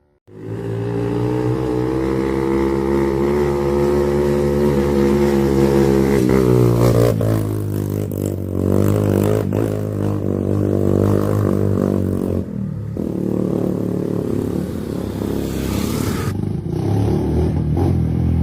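Motorcycle engine running hard under throttle, its pitch rising and falling as the revs change, with some rattling and scraping.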